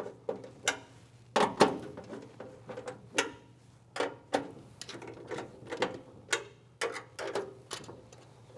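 Cap nuts being tightened onto the PEM studs of a relay's front mounting plate with a hand tool. It makes a run of irregular metallic clicks and ticks, a few a second.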